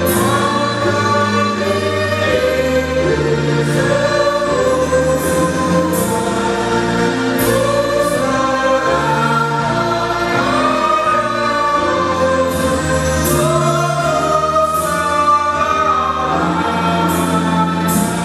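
A choir singing a hymn in slow, sustained notes.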